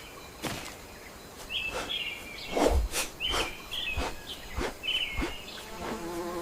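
Forest ambience in which a bird repeats a short chirping call about four times, with scattered sharp clicks and snaps. A low buzzy call comes in near the end.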